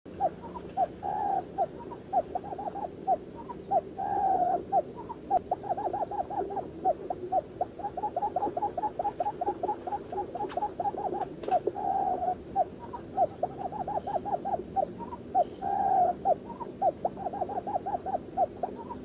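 Quail calling: a long run of short, low, falling hoots, about five a second, broken every few seconds by a single longer note.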